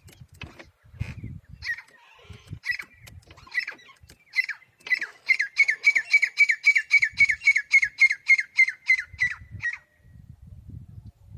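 A bird calling a long series of short, down-slurred chirps that start slowly and speed up to about three a second before stopping near the end. Low rumbling is heard near the start and end.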